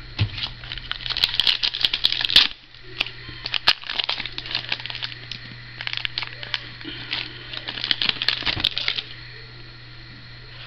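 Trading cards and their pack wrapper being handled: a run of quick clicks and crinkling rustles, busiest in two spells, that stops about nine seconds in, over a steady low hum.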